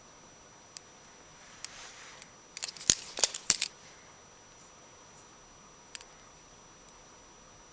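Benchmade Morpho 51 balisong being flipped: a quick flurry of sharp metallic clicks and clacks from the handles swinging and striking, about three seconds in, with a few single clicks before and after.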